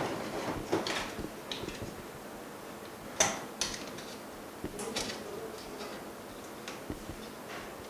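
Scattered light clicks and scrapes as hands pry at and handle a phone LCD panel and its parts on a metal work plate, with the sharpest click about three seconds in.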